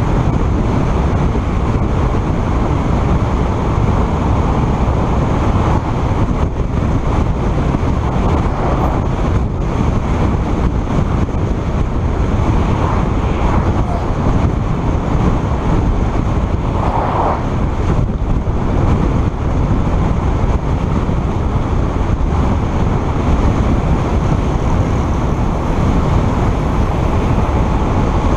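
Steady wind and road rush from a vehicle travelling at about 70 km/h, with wind buffeting the microphone and a heavy low-end rumble.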